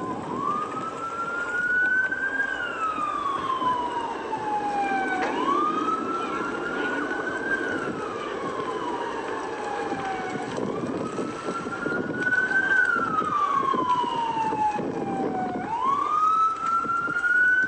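A siren wailing, its pitch rising and then falling slowly in a cycle about every five seconds, over a steady noisy background.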